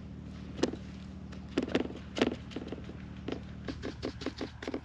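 Irregular soft taps and pats as small horse mackerel are pressed into cornmeal and laid on a metal plate, about a dozen in all, some in quick pairs, over a faint steady low hum.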